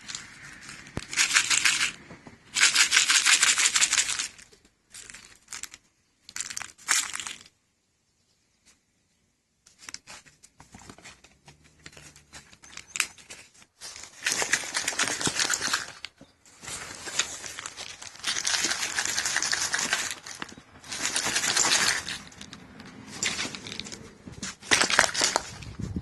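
Repeated bursts of crinkling, crackling handling noise, each a second or two long, with a brief pause partway through.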